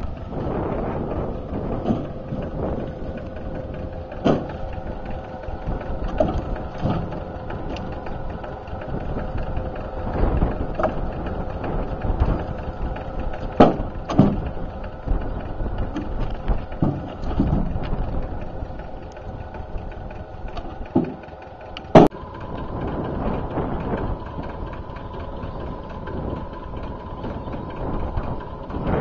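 Logs and branches knocking as they are dropped into a metal-sided trailer, a sharp knock every few seconds, over a tractor engine idling steadily.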